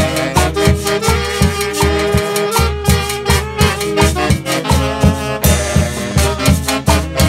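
Instrumental Latin dance-band music from a Christian orchestra, with a steady, driving beat, strong bass and a held melody line.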